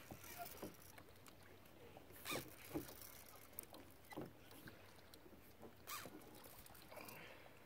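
Near silence, with a few faint knocks and small water plops around a kayak, spaced a second or two apart.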